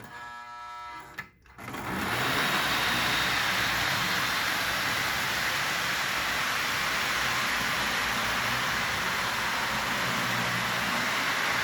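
Lionel GP20 toy train locomotive and its cars running in reverse on the track: a steady mechanical running noise of motor and wheels on rail. It begins after a faint hum in the first second and a half, then holds at an even level.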